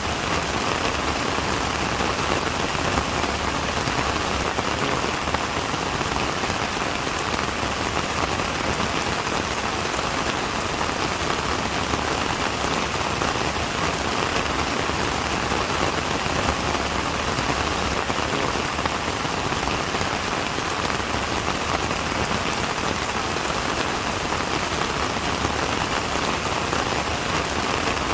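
Steady rain falling, raindrops pattering on surfaces in an even, unbroken hiss.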